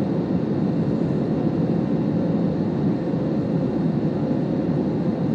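Commercial airliner cabin during the climb after takeoff: a steady, low noise of the engines and rushing air, with a faint steady hum above it.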